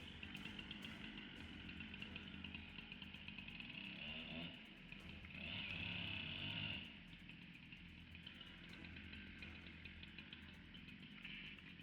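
Chainsaw running faintly, its sound swelling for about a second and a half midway through, then easing back.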